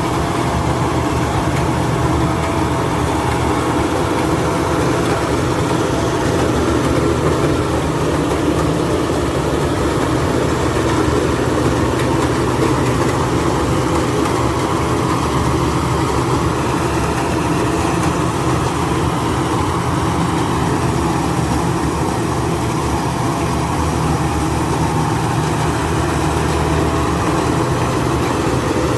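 Rice combine harvester running steadily, its engine holding a constant pitch throughout.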